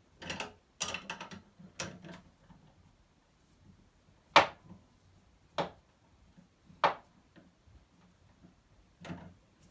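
Hand tools clicking and knocking during crankshaft-bearing extraction on a moped engine: a quick flurry of knocks in the first two seconds, then four single sharp clicks spaced a second or more apart.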